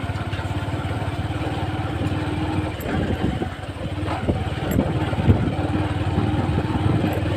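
Motorcycle engine running steadily while riding, picked up by a helmet chin-mounted camera, with a few short knocks and rattles in the middle.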